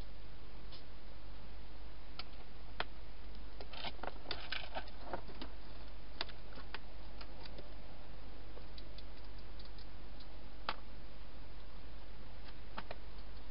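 Wild hedgehog eating inside a plastic feeding box: irregular sharp crunching clicks, with a quick flurry about four seconds in, over a steady hiss.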